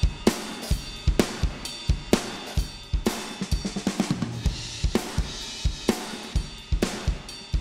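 Recorded acoustic drum kit playing a steady groove of kick, snare, hi-hat and cymbal, played back through the Waves Renaissance Compressor plugin. The compressor is switched to bypass for a couple of seconds partway through, so the drums are heard first compressed and then unprocessed.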